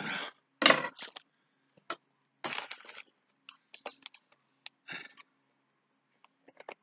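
A parcel being cut and torn open with a knife: cardboard and plastic wrapping scraping, crackling and tearing in short irregular bursts, loudest just under a second in.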